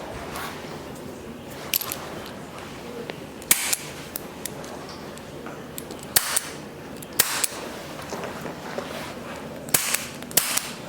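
Joints cracking under chiropractic manipulation: about half a dozen sharp, separate pops spread over the stretch, the loudest about three and a half seconds in.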